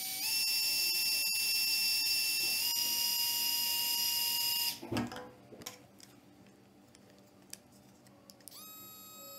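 Blö micro cooling fan running with its soft mesh removed: a steady high-pitched motor whine, the noise being measured, that steps up slightly in pitch twice and cuts off about five seconds in, followed by a few handling clicks. Near the end the small motor starts again with a quieter, higher whine.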